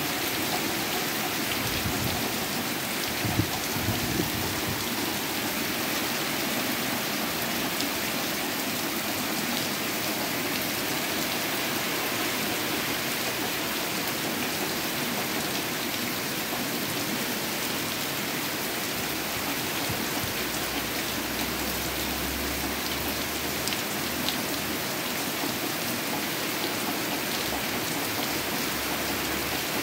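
Steady heavy rain falling on a yard, a continuous even hiss, with a couple of brief louder taps about three and four seconds in.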